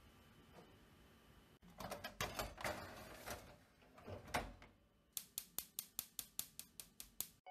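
Metal drawer of a gas stove's fish grill clattering as it is pushed shut. Then the grill's gas igniter clicks rapidly and evenly, about four or five clicks a second, as the burner is lit.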